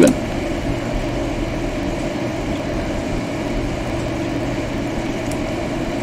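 Steady machine hum with an even whir underneath, unchanging throughout, and one faint tick about five seconds in.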